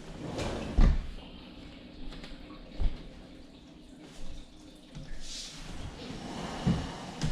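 A couch being shifted back into place on the floor: scraping, with dull thumps as its legs come down, the loudest about a second in and others near three and seven seconds.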